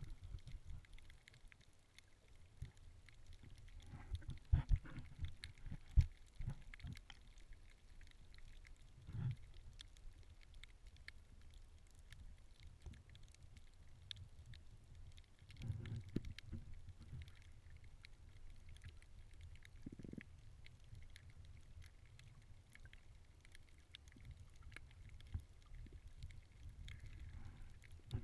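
Muffled underwater sound picked up by a camera held below the surface while snorkeling: a low rumble of moving water with several dull thumps, the sharpest about six seconds in, and faint scattered clicks.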